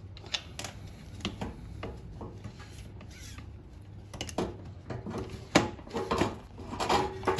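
Irregular metal clicks, taps and scrapes of hand tools on a Ford Cortina Mk5 clutch pedal box as the pivot pin is worked out to free the clutch adjuster ratchet. The knocks come more often in the second half, the sharpest about five and a half seconds in.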